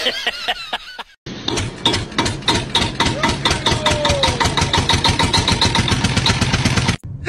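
A kitten purring loudly and close up, a fast, even, motor-like pulsing that starts about a second in and cuts off just before the end.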